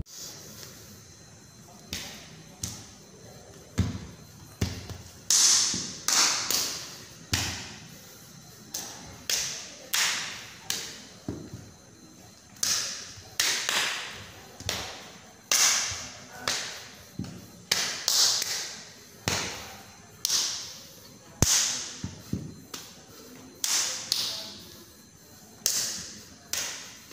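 A series of short, sharp swishing hisses that each fade quickly, roughly one a second, going with the strikes and steps of a silat form, with a few soft thuds of bare feet on a tile floor.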